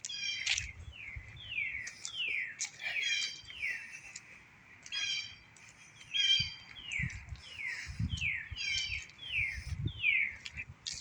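Songbirds calling in the trees: a repeated string of short, downward-slurred whistled notes, about one or two a second, interleaved with harsh, buzzy calls that come every couple of seconds.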